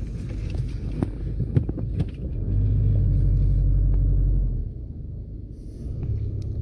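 Low rumble of a moving car with scattered small knocks, swelling louder for about two seconds near the middle before settling back.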